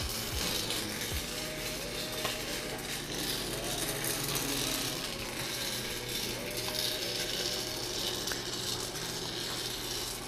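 Raw green coffee beans rattling and sliding as the motor-driven stirring arm of an electric pan coffee roaster sweeps them around the hot pan, over the roaster's steady motor hum. The beans have just been charged into the preheated roaster and the roast is only seconds old.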